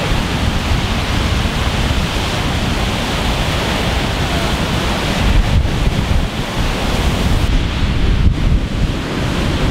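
Wind-driven storm waves breaking and washing on a rocky freshwater lakeshore, under heavy wind buffeting the microphone.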